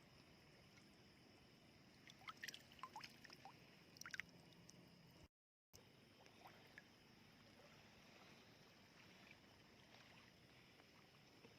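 Faint shallow seawater sounds: a few small splashes and clicks between about two and four seconds in, over a steady high hiss, with a brief cut to silence near the middle.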